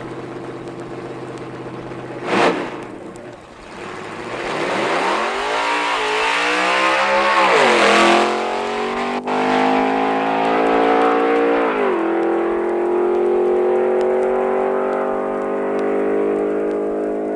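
Drag racing car engine running with a sharp crack about two seconds in. The revs climb from about four seconds and drop back near eight, then the engine holds a steady note that slowly rises.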